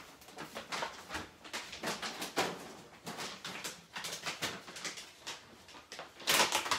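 Scattered rustling and light knocks as things are handled out of view, ending about six seconds in with a louder spell of plastic bag crinkling.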